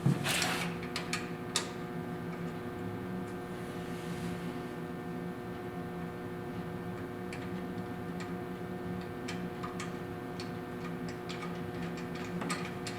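Steady hum with a short rustle just after the start, then sharp clicks and scattered light ticks and taps of small metal parts being handled.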